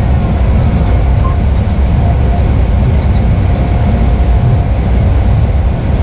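Combine harvester running steadily while cutting soybeans: a loud, dense low rumble with a faint steady whine above it.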